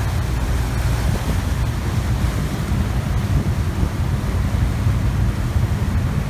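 A boat's engine droning steadily underway, with wind buffeting the microphone and water rushing past.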